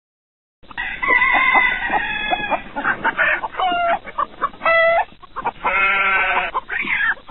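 Chickens clucking and squawking in a run of broken calls, starting just under a second in.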